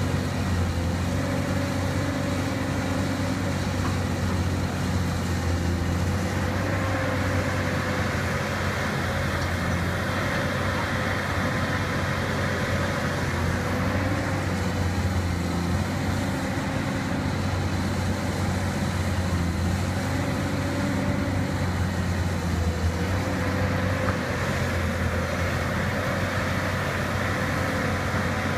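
Caterpillar 320D hydraulic excavator's diesel engine running steadily while the machine digs and pushes soil, with two longer stretches where the engine note grows harsher, about six seconds in and again past twenty seconds, as the hydraulics work under load.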